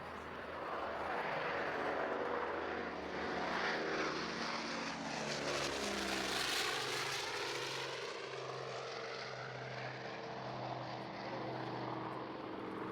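Propeller airplane flying low overhead; its engine tones drop in pitch as it passes, and the noise is loudest about six seconds in.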